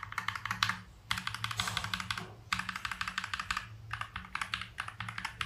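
Mechanical keyboard typed on quickly in several short runs of keystrokes. The keys are fitted with stock, unlubed KTT Red Wine linear switches, which have no click of their own.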